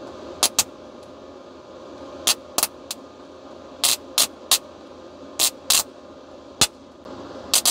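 About a dozen sharp electrical snaps at irregular intervals as a fused test lead arcs against the Growatt all-in-one inverter's PV positive terminal. The arcing comes from stray AC voltage between the PV terminal and the grounded frame, with enough current to blow a 15-amp fuse. A steady low hum runs underneath.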